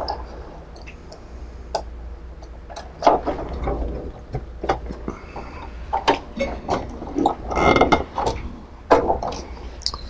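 Hands working cables and plastic parts of a C-arm monitor cart: scattered clicks, taps and rustling, busiest about three seconds in and again near eight seconds.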